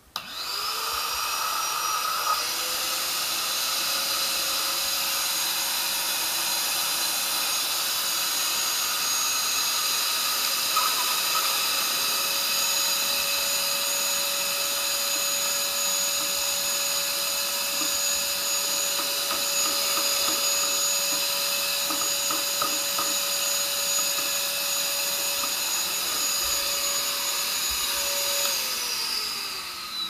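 Kärcher WD1 wet and dry vacuum cleaner switched on, its motor whine rising to a steady pitch within about two seconds as the hose nozzle draws up water from a bucket, with a few short crackly gurgles. Near the end it is switched off and the whine falls away as the motor spins down.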